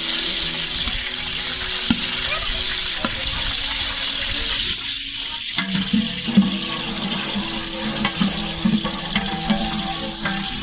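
Food sizzling in hot oil in a cooking pot as it is fried and stirred, with scattered clicks and scrapes of a spoon against the pot.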